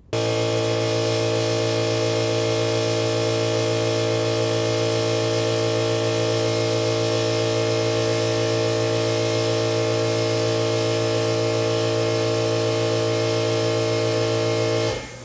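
An airbrush compressor's motor runs with a steady hum under the hiss of air from an airbrush spraying paint onto a plastic model part. The hum cuts off suddenly near the end, leaving a fainter hiss.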